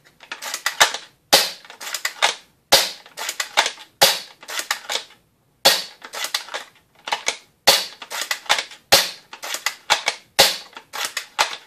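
Bolt of an AGM MP001 spring-action airsoft sniper rifle (a VSR-10 clone with a 400 FPS spring) worked repeatedly, about eight times, each stroke a quick cluster of sharp clicks roughly every second and a half. The bolt throw is extremely smooth, doesn't hang up and makes no odd noises.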